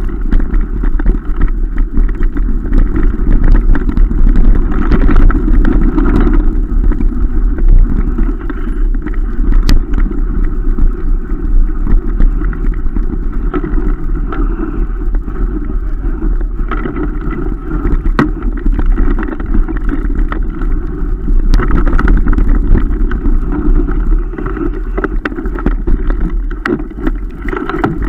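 Mountain bike running fast over a rough dirt trail, heard through an action camera's microphone: a loud, steady rumble of wind and tyres, with many sharp rattles and knocks as the bike and camera jolt over bumps.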